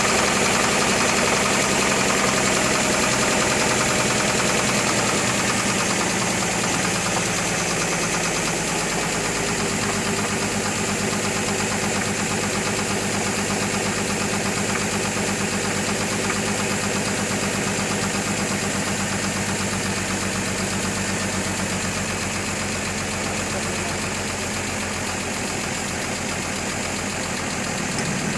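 A 2003 GMC Envoy's engine idling steadily with a knocking noise. The owner is still trying to trace the knock: a compression test showed cylinder #3 low at 150 psi against 180 psi on the others.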